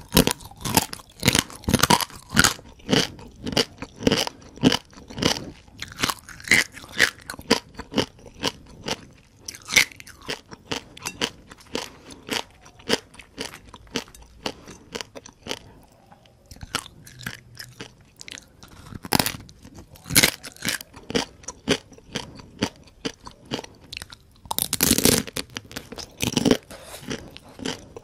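Close-miked chewing of crispy fried rice-field crabs, the whole shells cracking between the teeth in rapid, irregular crunches. The crunching eases to a quieter stretch about halfway through, then comes back with heavier bites near the end.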